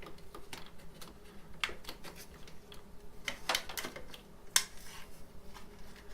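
Small scattered clicks and taps of a plastic protective cover being opened on a refrigerator's door hinge, with a few sharper clicks in the middle.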